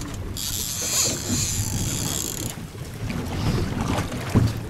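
Boat on open water: a low rumble with wind buffeting the microphone, and a steady high hiss for about two seconds near the start.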